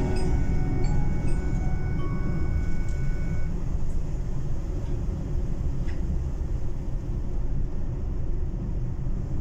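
Steady low rumble of a car's road and engine noise heard from inside the cabin while driving. The last ringing notes of a chime-like mallet instrument fade out in the first few seconds.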